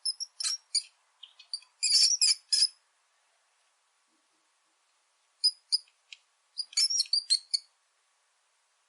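Mouse squeaking: short, high-pitched squeaks in quick clusters, with a pause of a few seconds midway.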